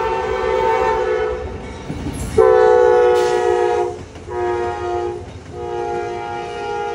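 Amtrak passenger train's locomotive air horn blowing loud, multi-note blasts as the train passes: one blast ending about a second and a half in, a louder one a second later, a short one, then a long one, over the rumble of the passing train.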